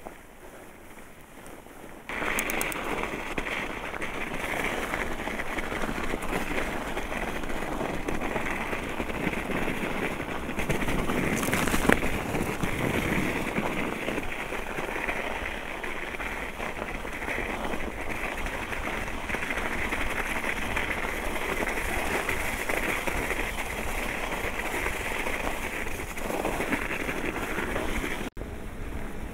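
Mountain bike riding fast over a snowy trail: steady tyre noise through the snow with wind on the microphone, starting about two seconds in, and a sharp knock about twelve seconds in.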